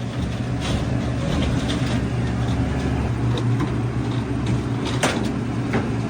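XCMG XE205GH medium excavator's diesel engine running steadily, with a few sharp clicks or knocks, the clearest about five seconds in.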